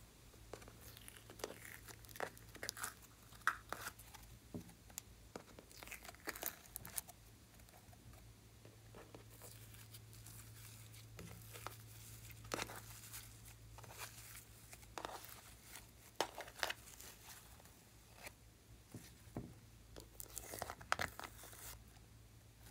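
Glitter slime being peeled and scraped by hand out of a plastic tray, with irregular sticky crackles, clicks and short tearing sounds, over a steady low hum.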